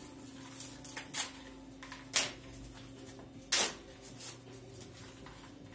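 Short crackles and scrapes of plastic wrap and paper as an instant-noodle cup is cut open with a knife and its lid peeled and handled, several separate sharp crackles with the loudest about three and a half seconds in. A steady low hum runs underneath.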